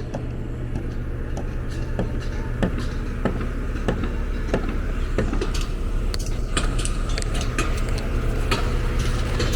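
Street and construction-site noise: a steady low engine hum under sharp clicks and knocks that come about every two-thirds of a second, more of them in the second half.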